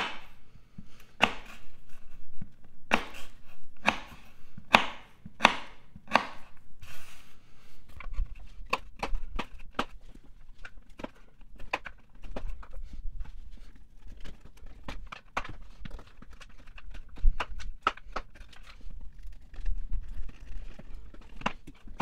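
Folding knife blade chopping down through thick saddle leather onto a wooden board, a sharp knock with each cut, about one every half second to second for the first seven seconds. After that come quicker, fainter clicks as the blade cuts through mesh-reinforced plastic tubing.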